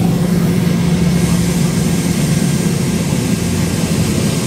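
Jet airliner's engines heard from inside the cabin during takeoff: a steady, loud rush of noise with a low hum beneath it.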